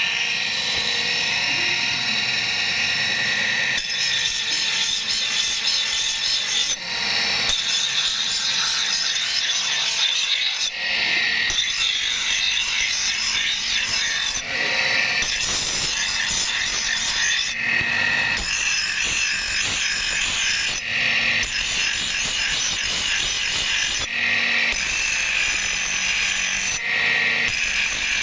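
Bench grinder's abrasive wheel grinding a steel axe head: a steady, high-pitched grinding hiss over the motor's whine. The sound changes abruptly every three or four seconds.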